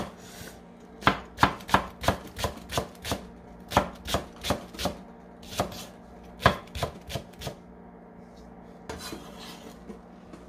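Chef's knife slicing a green onion on a wooden cutting board: a run of sharp knocks on the board, about three a second, that stops about seven and a half seconds in.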